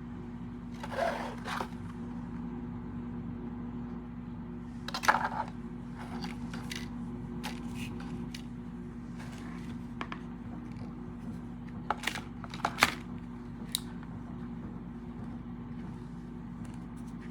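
A steady low electrical-sounding hum with scattered light clicks, taps and scrapes of small hard objects being handled, loudest at about five and thirteen seconds in.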